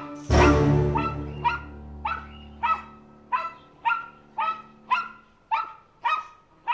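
A small dog barking in short, sharp yaps, about two a second, over the fading end of a music chord.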